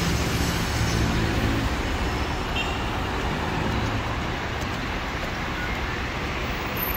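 City street traffic: passing cars' engines and tyres make a steady noise. One vehicle's low engine hum stands out in the first two seconds.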